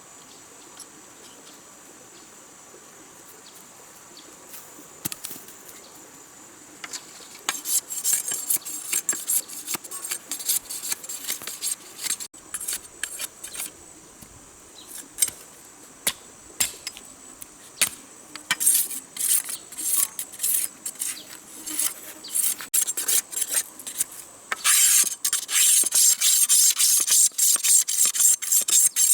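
A steady high insect drone, then from about a quarter of the way in, rapid repeated rasping scrapes that grow denser and louder near the end, like a blade or tool worked back and forth over a hard surface.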